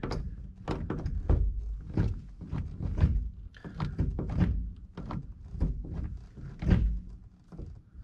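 VW Beetle shift lever being worked by hand through the gears, a series of irregular clunks and knocks as it moves between gears, with the shift linkage clamp loosened for adjustment.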